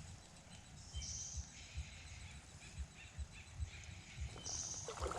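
Soft footfalls thudding at a walking pace, with a few short bird chirps in the background.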